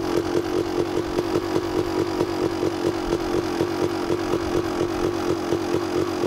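Dirt bike engine idling, a steady drone with a regular pulse of about five beats a second.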